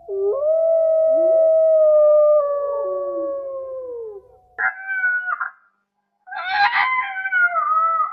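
Canine howling: one long, steady howl of about four seconds with another voice gliding beneath it, then after a brief pause shorter, higher, wavering howls.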